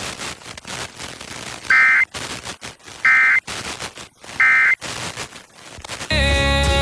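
Emergency Alert System end-of-message signal received over FM radio: three short, loud data bursts of warbling two-tone digital code, about a second and a half apart, with static crackle between them. Music starts abruptly near the end as the station returns to its programming.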